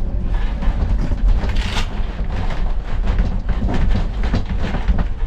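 Train running along the track: a steady low rumble with irregular clattering from the wheels and cars.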